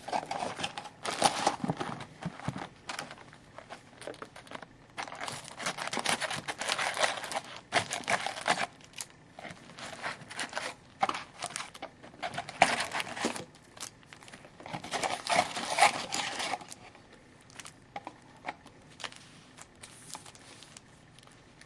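Plastic wrapping on a sealed hockey card box crinkling and tearing as it is opened, in several bursts of handling that die away to a few small rustles and clicks near the end.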